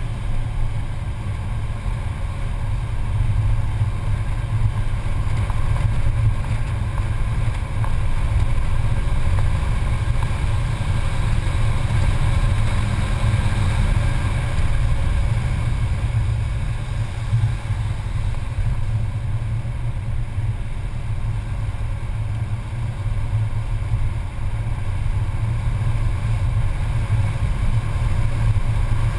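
Mercedes-Benz C280 engine running hard at track speed, heard from inside the cabin as a heavy low rumble mixed with road and wind noise. It builds a few seconds in, eases back somewhat past the middle, and builds again near the end.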